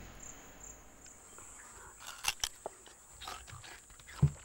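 A bonobo feeding on a stalk makes a few sharp cracks in the middle and a short low sound near the end, against a steady high, thin whine.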